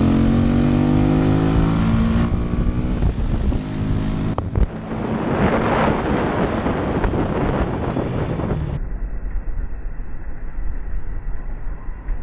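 Motorcycle engine running at speed, its pitch rising for about two seconds as it accelerates, then rushing wind noise on the microphone takes over. About nine seconds in the sound turns dull and muffled, leaving a steady low engine rumble.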